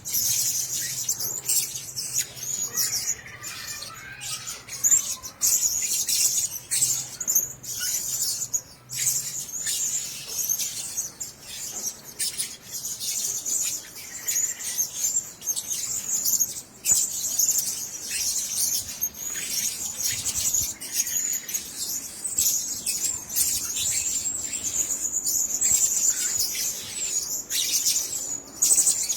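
Blue-crowned hanging parrots giving a constant stream of very high, thin chattering calls, with many short sharp clicks mixed in.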